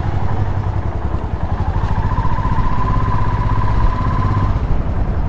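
Motorcycle engine running at low revs as the bike rolls slowly forward. A thin steady whine joins about two seconds in and stops about four and a half seconds in.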